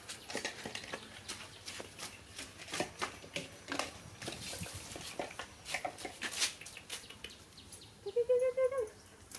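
Scattered light clicks and scuffs, then about eight seconds in one short whining animal call, under a second long, that rises and falls in pitch.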